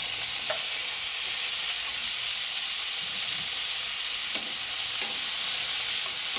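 Beef and broccoli frying in a pan, a steady sizzle, with a few light clicks that fit a utensil touching the pan.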